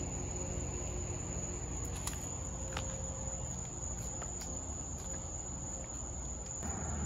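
Crickets trilling in one steady high-pitched note, with low rumbling handling noise underneath.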